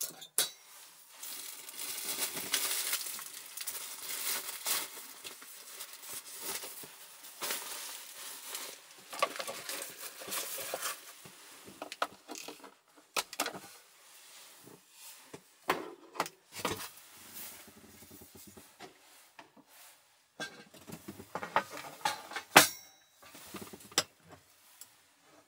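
Handling sounds in a small wooden room: rustling, then scattered clicks, taps and clinks as cookware and a small tabletop stove are moved on a wooden counter, with one sharper knock about three-quarters of the way through.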